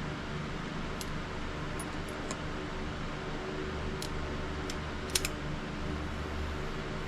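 Steady mechanical hum, like a ventilation fan, with a few faint scattered clicks and one sharper double click about five seconds in.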